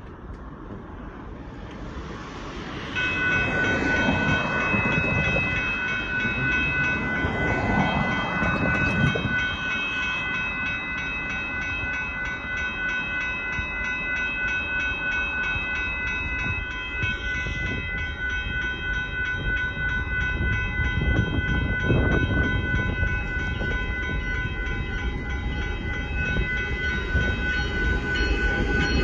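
Railroad grade-crossing bells start ringing about three seconds in and keep ringing steadily as the crossing gates come down, warning of an approaching freight train. Under them a low rumble grows louder toward the end.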